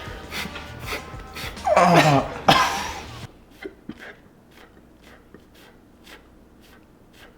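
A person imitating the sound of dry, chafing buttocks with their mouth: rasping, squeaky vocal noises with sliding pitch, loudest about two seconds in. After about three seconds it drops to faint, evenly spaced ticks.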